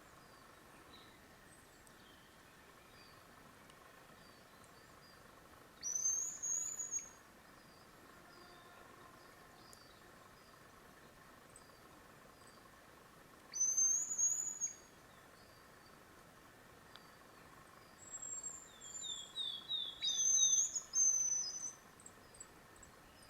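Hazel grouse hen giving its very high, thin whistling song three times, each a short piercing whistle phrase. The last phrase runs into a quick series of falling trilled notes.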